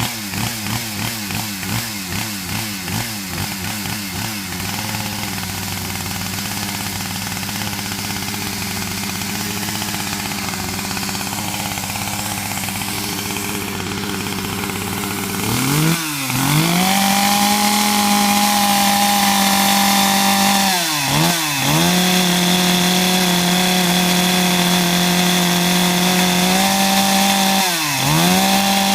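Large two-stroke chainsaw: quick throttle blips at first, then running at a steady lower speed, then held at full throttle from about halfway, dropping back briefly twice.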